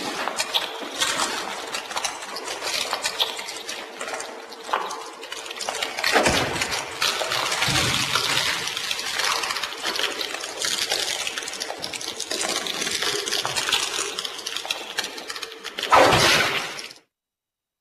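Sound effects of the Century King Sun Driver transformation belt from Kamen Rider Black Sun: a dense stream of noisy effects over a steady hum for the first few seconds, with a heavy low hit about six seconds in and a loud burst near the end that cuts off suddenly into silence.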